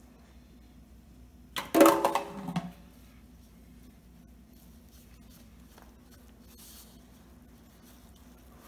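Faint scraping of a spatula stirring an egg into crumbly pastry dough in a bowl, over a low steady hum, with one short loud sound about two seconds in.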